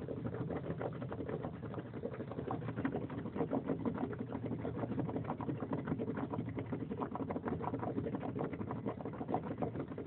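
Coolant boiling and gurgling in a Nissan Xterra's coolant reservoir, a steady, rapid bubbling over the low hum of the running engine: the engine is overheating.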